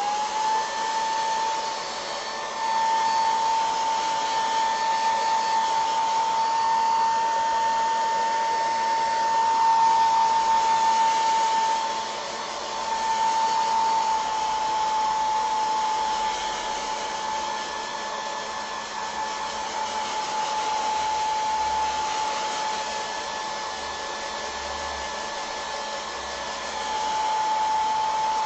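Hand-held hair dryer blowing steadily: a whine held at one pitch over a rush of air, swelling and fading in loudness as it is moved about. It is heating the crackle medium on a ceramic piece to open the cracks.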